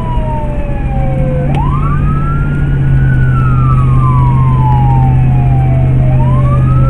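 Emergency vehicle siren wailing, heard from inside the responding vehicle: each cycle rises quickly and then falls slowly over several seconds. A steady low drone comes in under it about a second in.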